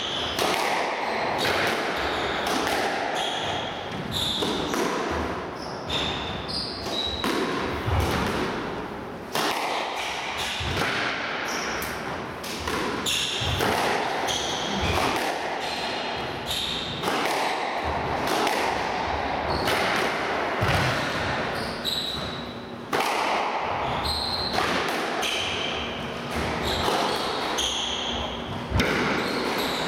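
Squash ball being struck by rackets and smacking off the court walls in an irregular series of sharp hits, with players' shoes squeaking on the wooden court floor.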